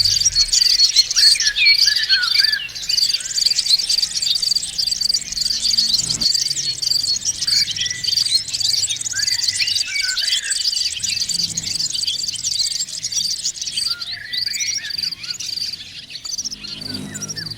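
A crowd of white-eyes (pleci) chattering together: a dense, unbroken mass of high, quick chirps and twitters.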